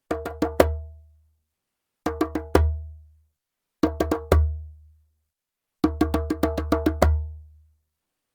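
Djembe played by hand in short phrases: four quick strokes, a pause, four more, another four, then a longer run of about ten strokes. Each phrase ends on a heavier stroke with a deep boom that rings out.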